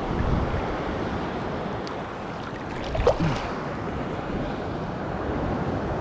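Gulf surf water washing and sloshing around a wade fisherman standing in the water, with wind buffeting the microphone. A short, louder sound with a falling pitch comes about halfway through.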